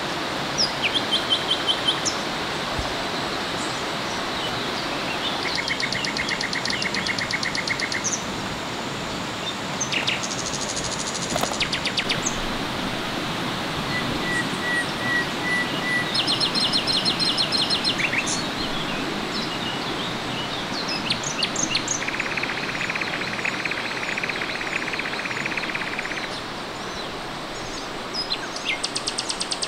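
Forest ambience: birds and insects calling in short, rapid trills and chirps, one after another, over the steady rush of a stream.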